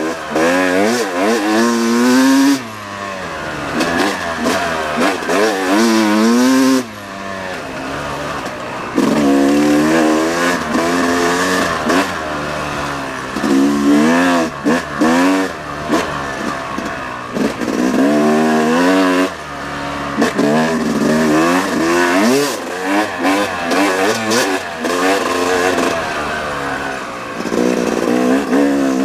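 2018 Yamaha YZ250X's two-stroke single-cylinder engine revving up and down with the throttle while riding, its pitch rising and falling over and over, with a few short drops when the throttle is shut.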